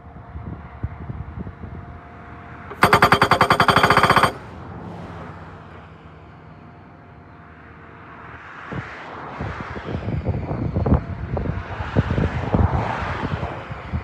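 Montana 1000E hydraulic post driver on a Cat 279D3 compact track loader hammering a wooden post: a loud, rapid burst of blows about three seconds in, lasting about a second and a half. Around it the loader's engine and hydraulics run steadily, growing louder in the last several seconds.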